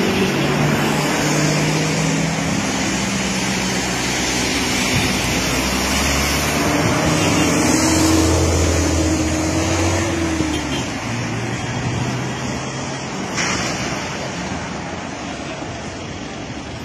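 Road traffic: motor vehicle engines running and passing, with an engine note swelling and fading about halfway through, over a steady rushing noise.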